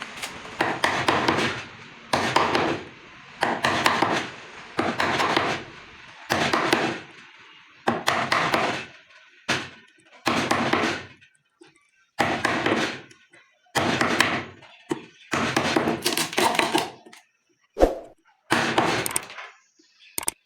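Repeated strokes of a hand tool working wood, roughly one every one and a half seconds, each a short noisy stroke lasting under a second.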